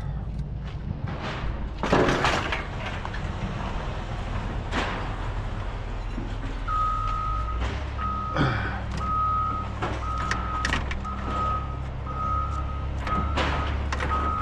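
An engine running steadily, joined about halfway through by a reversing alarm beeping at one steady pitch, roughly one and a half beeps a second, as a vehicle backs up. A few sharp knocks sound over it.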